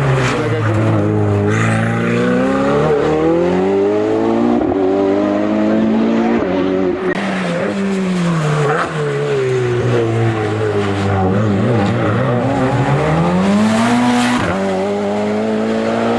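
Race car engine accelerating and braking through a run of corners. Its pitch drops on braking and downshifts, then climbs again under acceleration, several times over.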